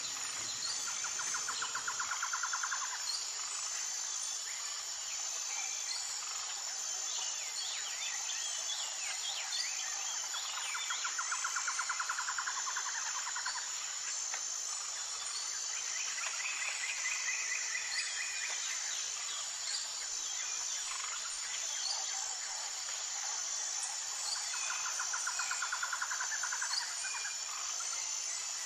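Nature ambience of insects and birds: a steady high-pitched insect drone with scattered bird chirps. Three bursts of rapid pulsed trilling come a few seconds long each, near the start, about a third of the way in, and near the end.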